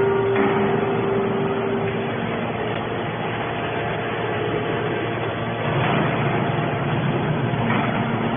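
Hydraulic scrap baler running: steady engine and hydraulic machinery noise, with a steady whine over the first two seconds and the machine working harder from about six seconds in.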